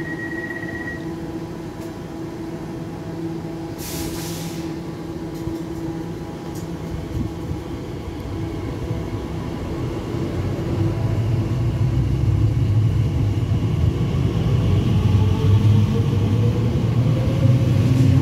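Elizabeth line Class 345 electric train pulling away from the platform: a steady electrical hum, a short burst of hiss about four seconds in, then a growing low rumble and a rising traction whine as it gathers speed.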